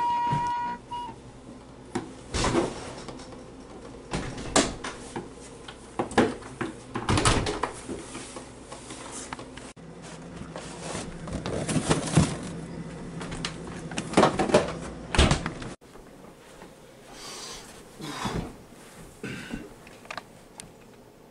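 Household handling noises: a run of separate knocks and clatters as doors and cupboards open and close and things are handled in a refrigerator, with a low steady hum underneath for a few seconds in the middle.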